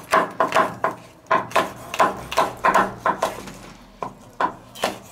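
Kitchen knife chopping bell pepper on a wooden cutting board: quick, sharp knocks of the blade on the wood, about three a second, coming more sparsely near the end.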